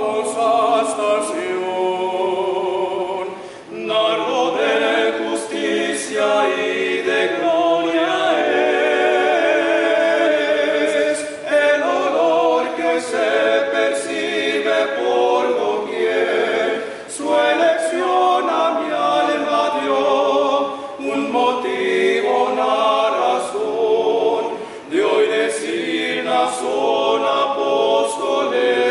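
Five men singing a hymn a cappella in harmony, one lead voice on a microphone, in phrases with short breaks between them.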